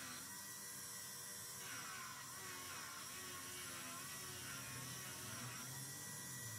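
Bench grinder with an abrasive sanding wheel running steadily, a motor hum and whir, with the pitch dipping briefly about two seconds in as the work is pressed against the wheel.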